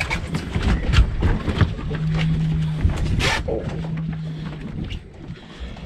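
Water slapping and sloshing against a boat hull, with repeated knocks and bumps, a brief hissing splash about halfway through, and a low steady hum that comes and goes twice.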